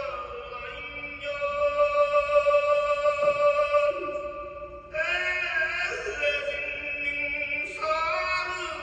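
Wordless music of long held notes, each rich in overtones, shifting to a new chord about every two to four seconds. There are clear changes about a second in, around four to five seconds in, and near the end.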